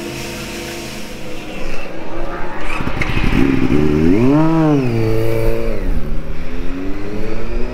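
Yamaha YZF-R6 Supersport racing motorcycle's four-cylinder engine revving. The pitch rises and falls in a blip about four seconds in, then climbs steadily near the end as the bike pulls away.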